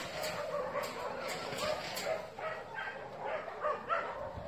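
A dog yipping: a rapid string of short calls, two or three a second.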